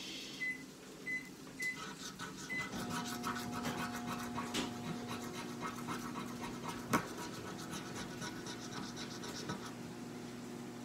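A coin scraping the latex coating off a lottery scratch-off ticket in quick strokes on a glass tabletop. A steady low hum starts about three seconds in, and a single sharper click sounds about seven seconds in.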